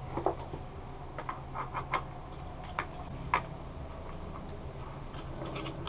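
Scattered light clicks and taps, about eight spread irregularly, as the engine and plastic housing parts of an Echo PB-265L backpack leaf blower are handled and fitted together, over a faint steady low hum.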